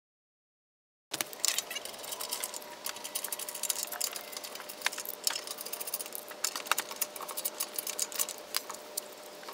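Silence for about the first second, then a hand ratchet clicking in quick, irregular runs as a car's wheel bolts are turned, over a faint steady hum.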